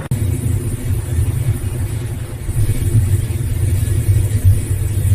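A machine's engine running with a steady, low rumble.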